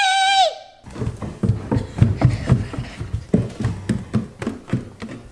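A woman's long, drawn-out shout of a name. Then, from about a second in, a quick, even run of footsteps on a floor, about three to four steps a second.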